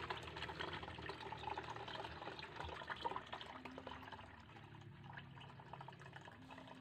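Liquid poured from a plastic bottle onto a mesh cloth strainer over a bucket, a faint trickling and splashing that quiets a little toward the end.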